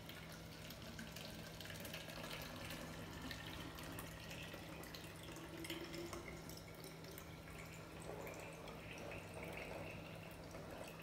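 Lukewarm water poured in a steady stream from a stainless steel kettle into a narrow-necked glass bottle, its tone rising slowly in pitch as the bottle fills.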